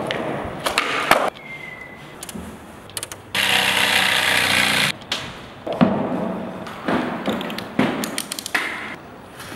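Skateboard wheels rolling on concrete with a few sharp clacks of the board. About three seconds in, a jigsaw cuts through a board for about a second and a half; this is the loudest sound. After it come scattered knocks and clicks.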